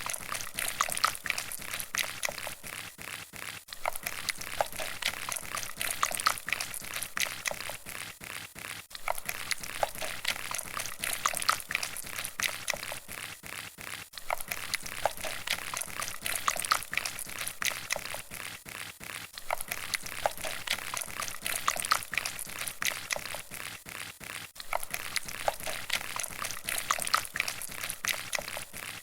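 A crackling, fizzing, pouring-like sound effect of dense fine clicks, played as a loop that starts over about every five seconds.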